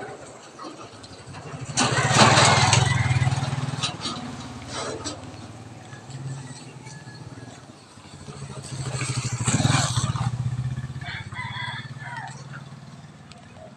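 Two motorcycles pass close by, one after the other. The first, a motorcycle with a sidecar (tricycle), passes about two seconds in, and the second about nine seconds in. Each engine grows louder, then fades.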